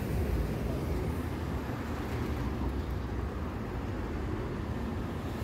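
City bus pulling away from the stop: a steady low engine rumble, its higher road and engine noise dying down after about two seconds as it moves off, with street traffic underneath.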